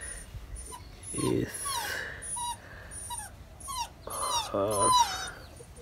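A dog whining twice, a wavering call about a second in and a longer one near the end, with small birds chirping throughout.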